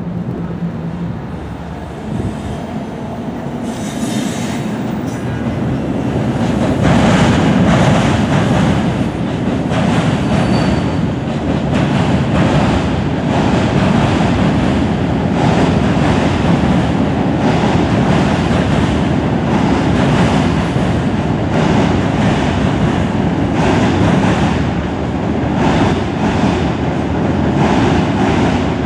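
New Jersey Transit commuter train with an ALP-46 electric locomotive crossing a steel rail bridge, its wheels and cars rumbling louder over the first several seconds as it approaches. Once it is close, wheel clacks over rail joints come about once a second.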